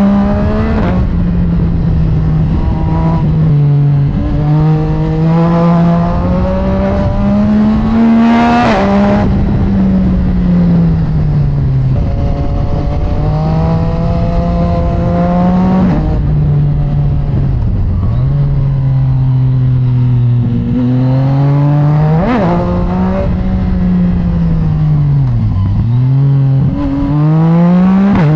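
Yamaha MT-09's 847 cc three-cylinder engine, breathing through an aftermarket exhaust and heard from the bike while riding. The engine pitch climbs under acceleration and drops sharply at each gear change, then falls off while slowing several times.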